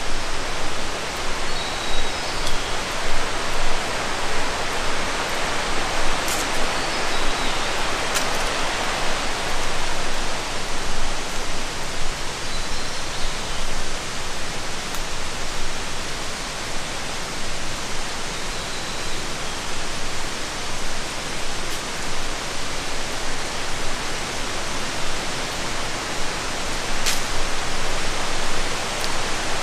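Steady rush of flowing water, even and unbroken, with a few faint, short high chirps over it.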